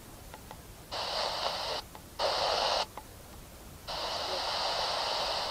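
Static hiss from a Casio pocket TV's small speaker on weak analog reception during a channel scan. The hiss switches on about a second in, cuts out twice briefly, then holds steady from about four seconds in.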